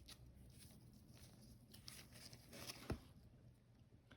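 Near silence with faint handling noise of trading cards: soft sliding and a few light ticks, the clearest about three seconds in.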